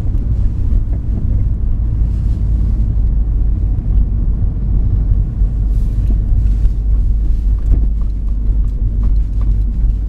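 Inside the cabin of a 2000 Ford Focus driving over a bumpy road: a steady low road and tyre rumble, with a few faint knocks and rattles in the second half. The knocks are the odd suspension noise the owner is trying to track down.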